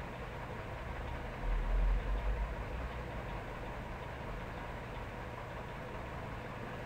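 Steady background hiss with a faint hum, and a brief low rumble about one and a half seconds in.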